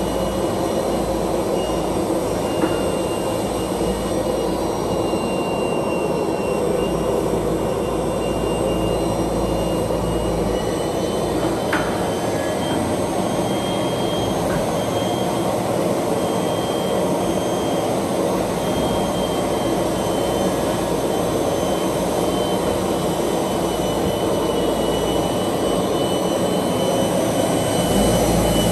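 MB Maschinenbau Roba Fentech brush sanding machine running steadily with parts passing through: a continuous mechanical drone with a faint, steady high whine, and one short click about twelve seconds in.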